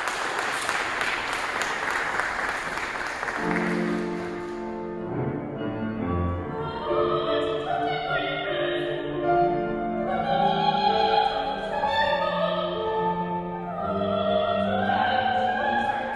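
Audience applause for the first four seconds or so, then a grand piano starts an introduction, and a few seconds later a woman begins singing an operatic aria over the piano accompaniment.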